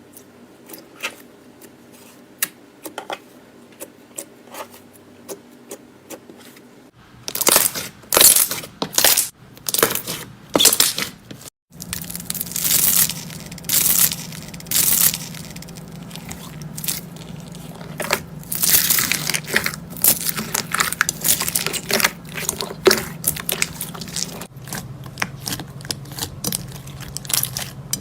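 Slime being squeezed and pressed by hand, giving sparse soft clicks at first, then dense loud crackling and popping from about seven seconds in.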